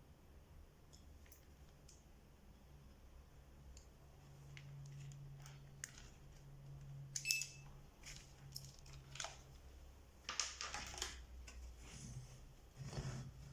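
Faint scattered clicks, taps and short scrapes of small objects being handled, coming more often after about five seconds, with the sharpest click about seven seconds in, over a low steady hum.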